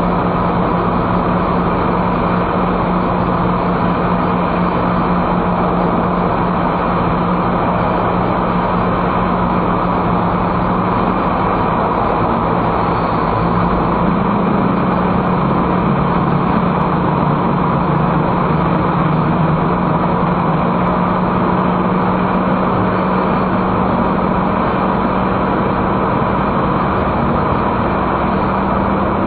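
Steady engine and tyre noise of a car driving at speed, heard from inside the car, with a constant low hum that rises slightly in pitch about halfway through.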